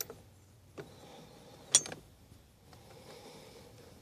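A sharp metallic clink about two seconds in, with a fainter knock a second before it: hand tools and a steering wheel puller being handled over a quiet shop background.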